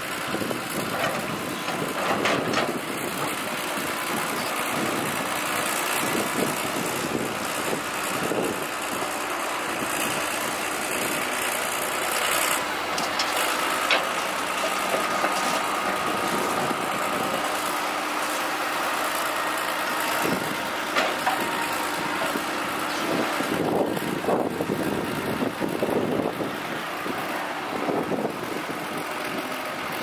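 Heavy construction machinery running: the diesel engines of trucks and earthmoving vehicles make a steady mechanical noise, with occasional knocks and a faint whine for several seconds in the middle.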